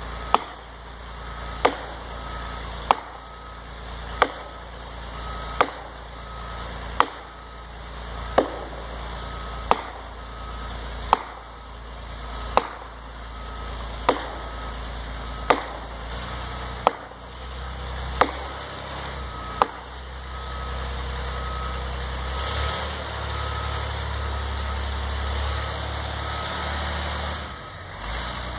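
Felling wedge being pounded into a redwood's cut: sharp strikes, about one every second and a half, around fifteen in all. About twenty seconds in they stop, and a chainsaw runs steadily for about eight seconds before cutting off.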